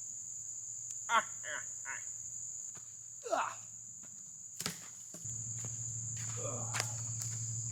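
A steady, high-pitched insect drone. Over it come a few short vocal sounds in the first half, a knock about four and a half seconds in, and a low steady hum that comes in about five seconds in.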